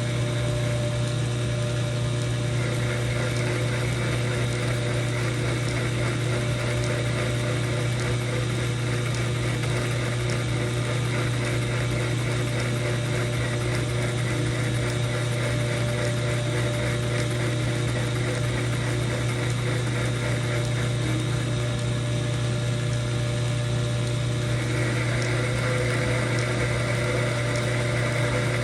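Old metal lathe running steadily with a strong low hum and whirring gears. A higher-pitched note joins a couple of seconds in, drops out for a few seconds near the end, then comes back.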